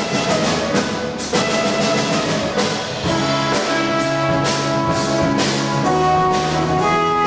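Small jazz band playing live: saxophone holding sustained melody notes over grand piano and drum kit, with cymbal strikes about every half to one second.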